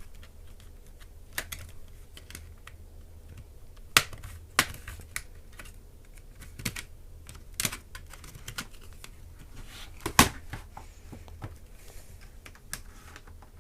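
Irregular sharp plastic clicks and snaps as a credit card pries a ThinkPad E450's plastic keyboard bezel, its latches popping loose, with the loudest snaps about 4 seconds in and again about 10 seconds in.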